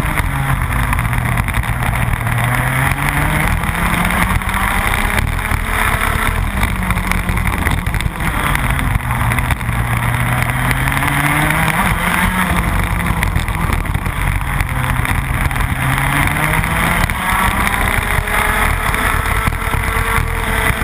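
Rotax Max 125cc single-cylinder two-stroke kart engine at racing speed, heard from on board. Its pitch drops as the kart slows for each corner and climbs again as it accelerates out, about five times over.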